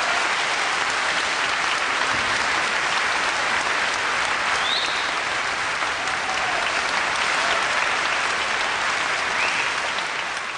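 Concert audience applauding steadily after the performance, beginning to fade near the end.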